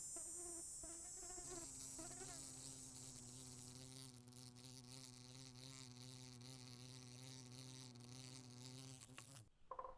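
Faint buzzing of a flying insect. For the first second or two the pitch wavers up and down, then it settles into a steady, lower buzz that stops abruptly about nine and a half seconds in. A soft high hiss runs beneath it.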